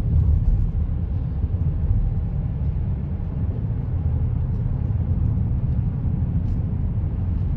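Car road noise heard from inside the moving vehicle: a steady low rumble of tyres and engine.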